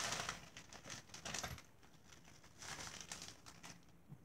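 Plastic packaging bags crinkling and rustling as they are handled, busiest in the first second and a half, with a few softer rustles after.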